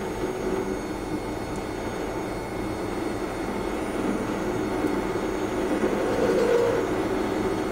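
Lathe running at about 1300 rpm, spinning a 3/8-inch solid steel rod while a number 4 center drill in the tailstock drill chuck is fed slowly into its end to bore a center. A steady running hum and hiss that grows a little louder about six seconds in.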